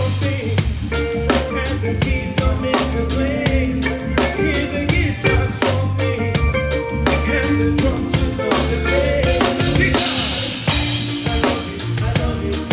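Live rock band playing, with the drum kit close and prominent: kick drum, snare rimshots and a steady run of cymbal strokes over a held, stepping bass line and pitched guitar or keyboard parts.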